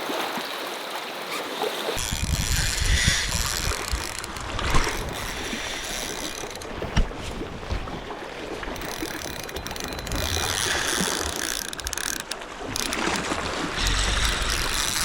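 Fishing reel being cranked, its gears and ratchet turning steadily, with wind rumbling on the microphone from about two seconds in.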